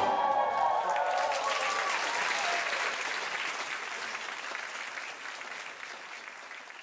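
Opera-house audience applauding as the orchestra's final chord dies away in the first second; the applause then gradually fades out.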